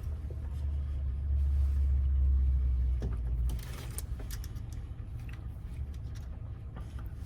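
A low rumble for the first three and a half seconds or so, which then stops, with small clicks and taps from lock parts being forced together by hand.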